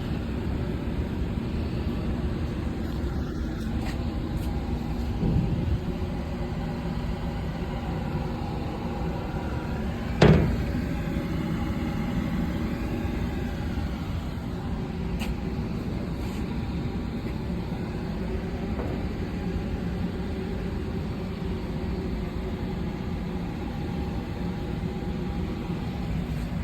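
Steady engine drone, like a bus idling, with one sharp knock about ten seconds in, the loudest sound, and a softer one about five seconds in.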